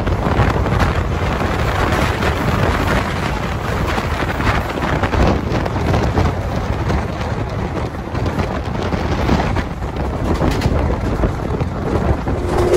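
Passenger express train heard from its open doorway while running at speed: a steady rush of wind over the microphone mixed with the rumble of wheels on the track, with occasional short clatters.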